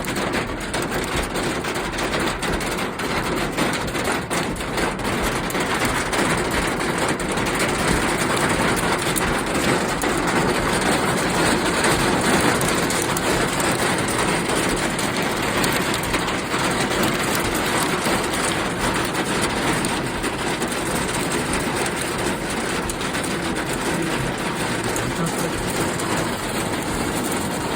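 Heavy rain pouring down in a steady, dense rush of drops, as a thunderstorm passes.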